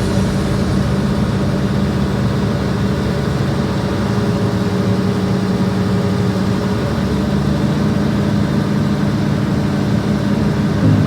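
Heavy diesel machinery engine running steadily, as of the excavator driving the hydraulic drum cutter.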